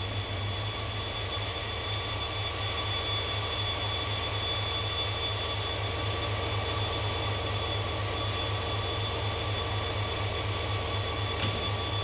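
Diesel locomotive engine running steadily at a standstill: an even, pulsing low throb with a faint steady high whine above it. A few light clicks come through, one early on the second and another near the end.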